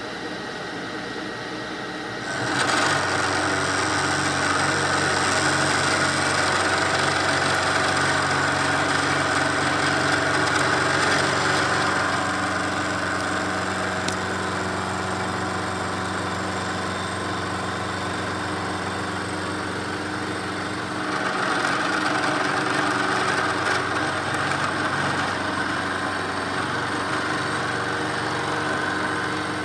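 Vertical milling machine's face mill cutting along the edge of a metal plate, a steady motor hum under the cutting noise. The cut starts about two seconds in, eases off partway through and grows louder again about three quarters of the way through.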